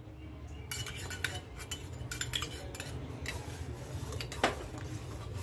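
A spoon clinking and scraping against a pan of boiling milk as ground ginger is added and stirred in: scattered light clinks, with a louder one about four seconds in, over a steady low hum.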